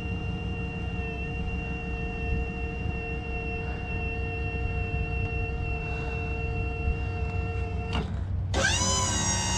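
Wood-Mizer LT35 sawmill's engine running steadily, then about eight seconds in it speeds up, its pitch rising quickly and holding higher.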